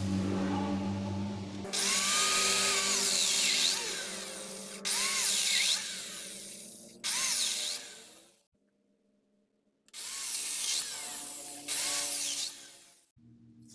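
Handheld power drill run in five short bursts, its motor whine rising as it spins up and falling away as the trigger is released.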